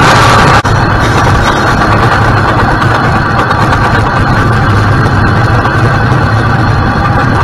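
Dirt late model race car's V8 engine heard from inside the cockpit, running steadily. About half a second in, the sound abruptly dulls and loses its high end, then carries on at a steady level.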